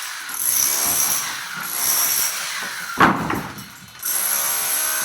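An electric power tool working wood, its motor sound swelling and easing about once a second, with a sharp knock about three seconds in.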